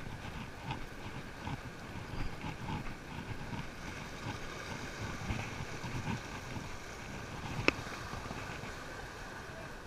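Small waves washing and splashing against the boulders of a rock jetty, with wind buffeting the microphone. A single sharp click about three-quarters of the way through.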